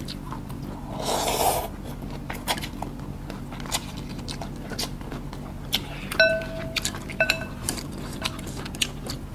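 Chopsticks and spoons clicking and clinking against soup bowls while eating noodle soup. There is a short slurp of noodles about a second in, and a spoon strikes a bowl with a ringing clink twice, around six and seven seconds in.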